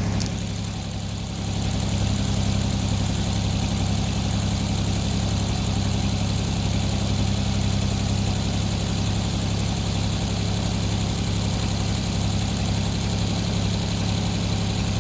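Engine powering a circular sawmill, running steadily at an even pitch, with a brief dip in level about a second in.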